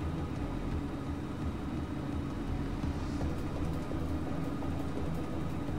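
Cartoon sound effect of a monster truck's engine running steadily as it drives along.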